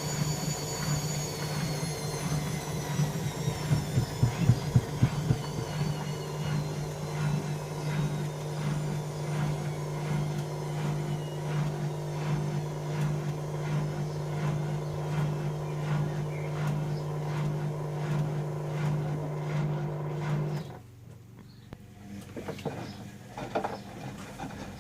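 Bauknecht WA 1460 Sports washing machine running, with a steady low hum. A high motor whine falls in pitch over the first few seconds, and there is some knocking a few seconds in. The hum cuts off suddenly about twenty seconds in, leaving a few quieter clicks.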